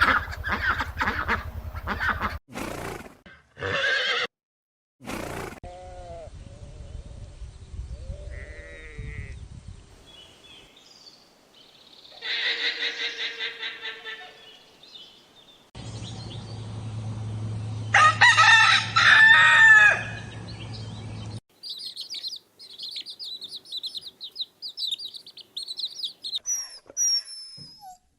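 A run of different animals' calls cut one after another, each lasting a few seconds. Farm-animal calls such as bleating and crowing are loudest around the middle, and high, quick chirps fill the last few seconds.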